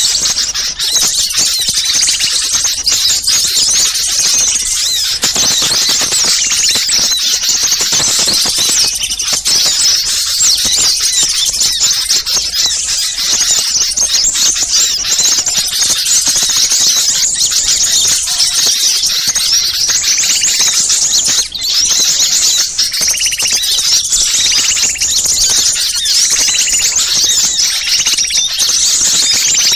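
A dense, noisy chorus of many small birds chirping and twittering rapidly at a high pitch, without pause: a bird-lure recording of small birds in commotion, played to draw wild birds in.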